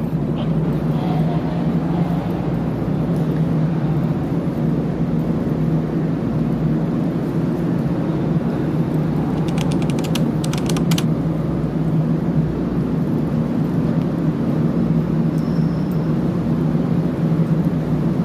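Steady low mechanical drone of the ferry's machinery, filling its enclosed steel vehicle deck. About halfway through comes a quick run of sharp clicks lasting about a second.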